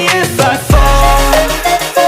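Pop song with an electronic beat. A heavy deep bass comes in under it a little under a second in.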